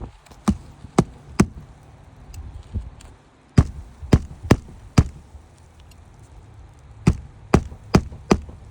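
Hammer blows on a shingle roof, likely nailing in a replacement shingle: three runs of three or four sharp strikes, about two a second, with short pauses between runs.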